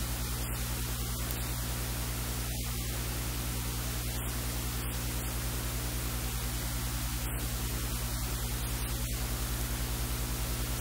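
Steady static-like hiss over a low electrical hum with a fast, even throb: recording noise, with no other sound standing out.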